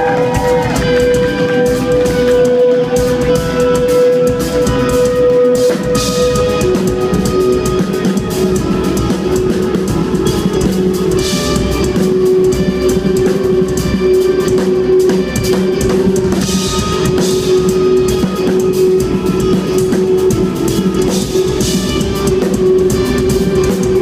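Live instrumental progressive metal: eight-string electric guitars and a drum kit playing dense, busy parts. A long held note runs over them and steps down to a lower pitch about six and a half seconds in.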